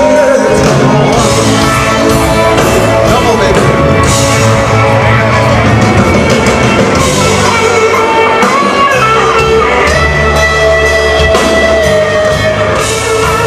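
Live blues-rock band playing loud over an outdoor PA: electric guitar and drum kit, with singing.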